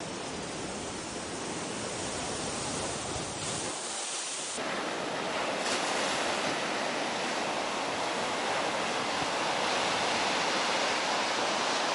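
Sea surf: waves breaking against a harbour sea wall, then surf washing up a sandy beach. A steady rushing noise that turns a little louder and brighter about four and a half seconds in.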